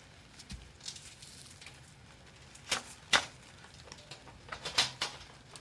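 A few sharp clicks and knocks as the parts of a metal folding fire pit are fitted together, the two loudest about three and five seconds in.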